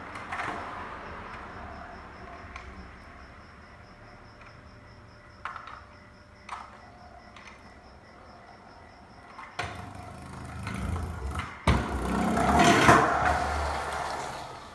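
Trick scooter's wheels rolling over concrete, building up from about two-thirds through as the rider comes close and passes, with a sharp knock just before the loudest part. A few faint clicks come earlier.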